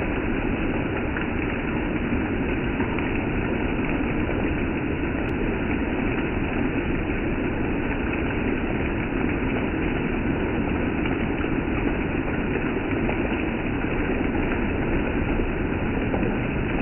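Steady rain falling and dripping off a roof edge: an even, unbroken rush of noise.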